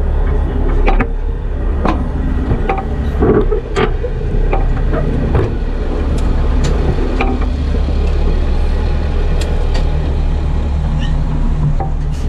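Heavy tow truck's diesel engine running steadily, with sharp knocks and clanks of loose metal gear now and then.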